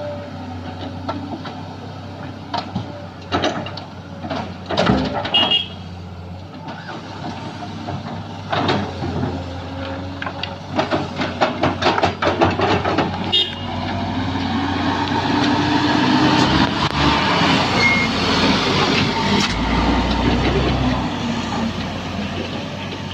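Sany SY215C excavator at work: its diesel engine runs steadily under many clanks and knocks in the first half. From about fourteen seconds in, the engine works harder, louder and rising in pitch.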